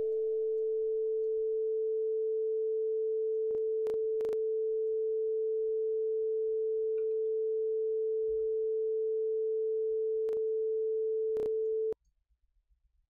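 Arturia ARP 2600 synthesizer held on a single steady, nearly pure mid-pitched tone with no vibrato. It cuts off suddenly near the end, and a few soft clicks sound over it.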